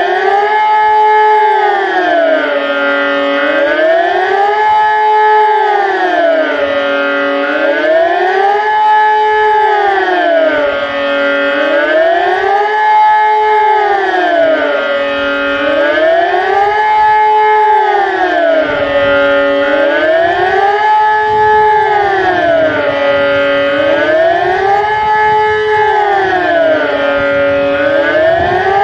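ET 751 civil-defence siren sounding the Swiss general alarm: a loud, multi-note wail rising and falling evenly, about once every four seconds, holding briefly at the top and bottom of each cycle. A low rumble joins it about two-thirds of the way through.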